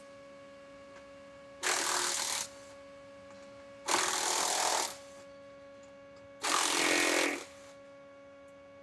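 Cordless impact wrench running in three short bursts of just under a second each, loosening the battery hold-down bolts.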